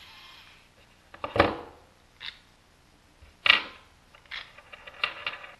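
Small gear motor of a homemade electric screwdriver whirring and stopping about half a second in, followed by handling knocks and clicks of plastic parts and a loosened bolt, with two louder knocks about one and a half and three and a half seconds in.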